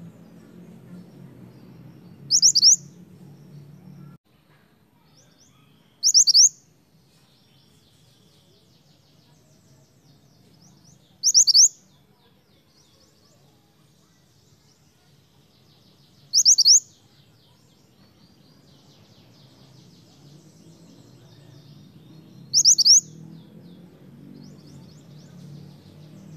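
Minivet (mantenan) calling: a sharp, high double note, given five times several seconds apart. Faint high chatter runs underneath.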